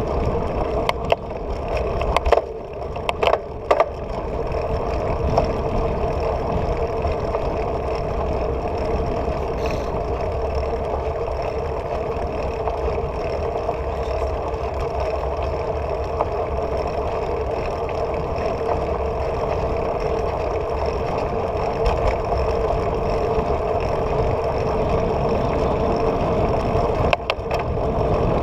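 Bicycle rolling over asphalt, heard from a handlebar-mounted camera: a steady rumble of tyre and wind noise, with a few sharp rattling knocks from about one to four seconds in and again near the end.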